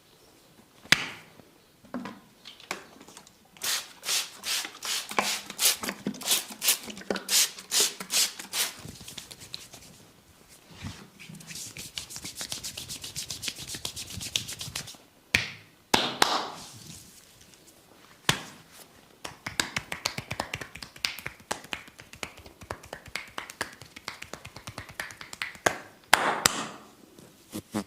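A massaging barber's hands striking and tapping in quick rhythm: a run of sharp slaps or snaps about three a second, then several seconds of fast, fine tapping, then scattered single sharp claps.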